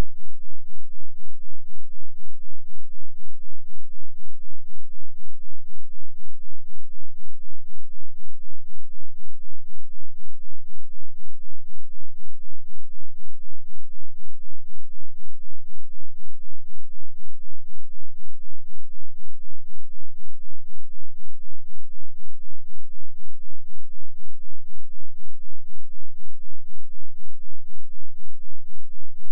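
2 Hz sine-wave subwoofer test tone: a steady, very deep bass pulsing evenly about four times a second, with faint overtones above it.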